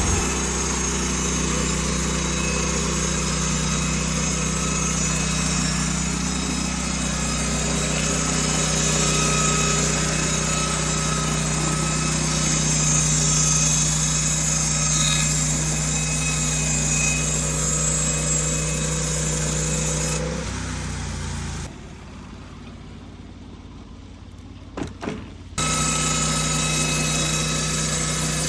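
Sawmill engine running steadily under load while the saw cuts through an old cedar dock pole. Near the end the sound drops away abruptly for about four seconds, with a couple of short knocks, then comes back at full level.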